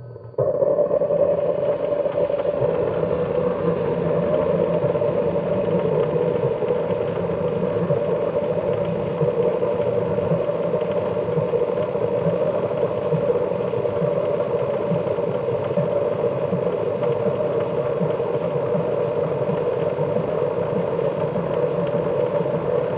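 Bandai DX Arcle toy transformation belt playing its Pegasus Form transformation sound through its small speaker: a steady electronic whirring buzz that starts about half a second in and holds evenly.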